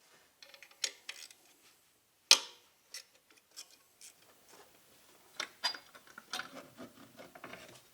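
Socket ratchet clicking in short runs as it backs off the 10 mm nuts holding a glow plug control module, with one sharp metallic clack a little over two seconds in.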